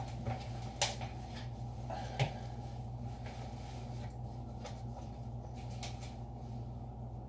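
Handling noise as a scoped hunting rifle is slid into a padded soft gun case: light fabric rustling and a few small knocks, the sharpest about one and two seconds in. A steady low hum runs underneath.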